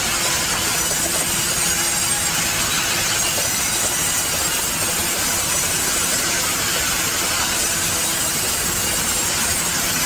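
Large vertical band saw running in a sawmill, its blade sawing a log into planks: a steady, loud hiss and whine of machinery that does not let up.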